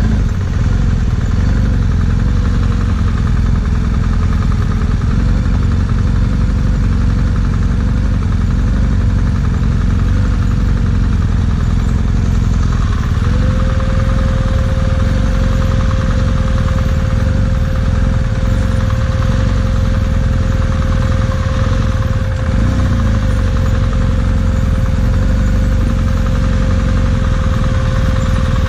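BMW GS motorcycle engine running steadily, with a heavy low rumble throughout. A steady higher tone joins about halfway through and holds.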